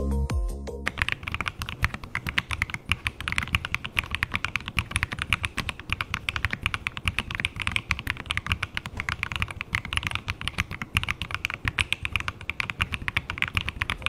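Fast, continuous typing on a Velocifire KV1-65 aluminum-case 65% mechanical keyboard, a dense stream of key clicks, as a sound test of the board. Background music ends about a second in, leaving the typing alone.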